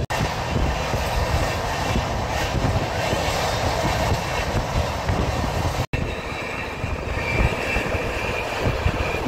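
Duronto Express passenger train running at speed: a steady rumble and rush of wheels on the rails. The sound cuts off for an instant twice, right at the start and about six seconds in.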